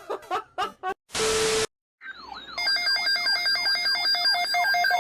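Edited electronic sound effects: a few clipped fragments and a short burst of static, then a brief silence and a repeating electronic alarm-like ringtone of stepping tones and falling sweeps.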